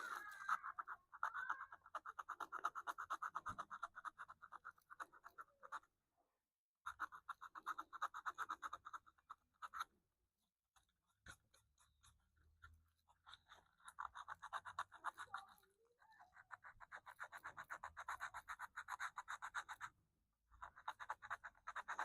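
Sandpaper rubbed by hand in quick back-and-forth strokes over a glued-in patch in a wooden radio cabinet, in several spells of a few seconds with short pauses between them. This is levelling the patch, which sits a little high on one side, flush so the veneer laid over it won't bubble.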